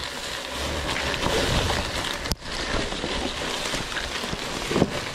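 Long grass swishing and crackling against a near-silent electric dirt bike and its tyres as it rides through, with one sharp knock near the end.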